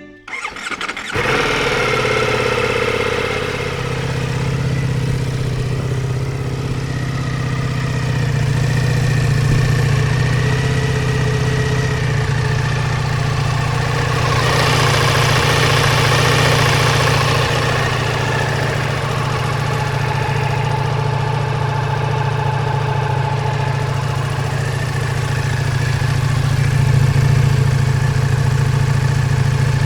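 Ducati Multistrada V4 S's 1158 cc V4 engine cranking and catching within the first second, then idling steadily. A hiss rises over it for a few seconds midway.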